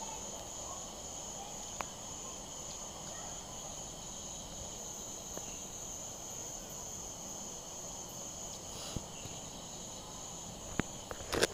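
A steady, high-pitched chorus of night insects such as crickets, with a few short clicks near the end.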